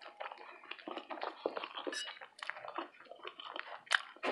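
Quiet close-mic chewing of a spinach, tomato and cheese sub sandwich: a run of small irregular wet mouth clicks and smacks, with a sharper click near the end.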